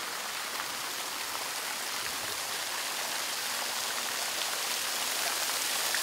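Fountain water jets spraying and splashing into a basin: a steady hiss of falling water.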